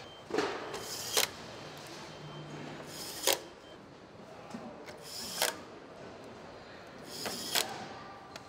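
Sharp clicks of plastic dashboard trim snapping into place, about six, several coming after a short scrape of plastic being slid and pressed, over the steady hum of a factory floor.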